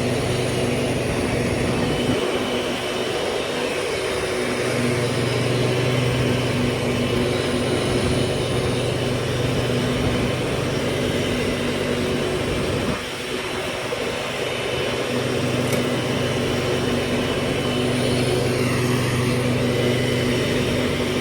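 1997 MTD Yard Machines riding lawnmower engine running steadily while mowing, with a steady hum. The level briefly drops about 13 seconds in.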